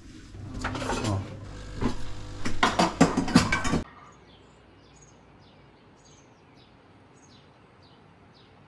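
Automatic bean-to-cup coffee machine working, a low hum with a run of clicks and clatter that grows louder before stopping abruptly about four seconds in. Then faint outdoor air with small birds chirping, short falling notes about once a second.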